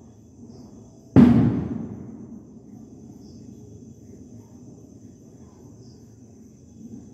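A single loud thump about a second in that rings out and dies away over about a second, followed by faint steady background noise.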